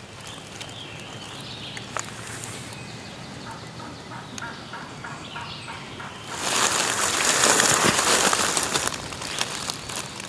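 A distant wild turkey gobbling: a faint, rapid rattling call. From about six seconds in, a few seconds of loud rustling noise, louder than the gobbling.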